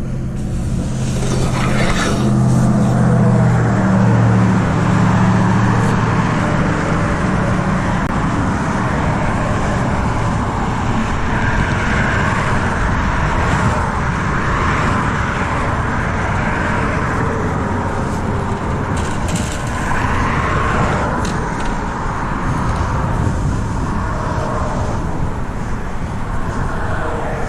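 Steady road traffic noise, with one vehicle's engine standing out low and strong over the first several seconds as it passes.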